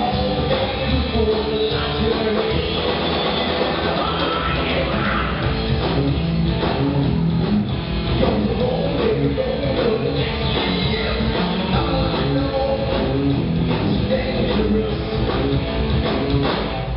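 A live rock band playing loud and steady: electric guitars, bass and a drum kit.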